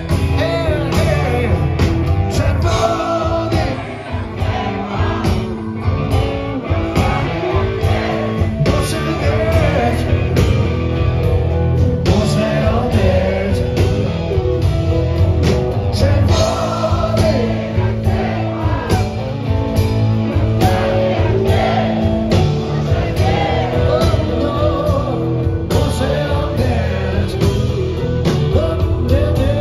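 Live rock band playing at full volume: a male lead vocal over electric guitars, bass, keyboard and drums, heard from within the audience.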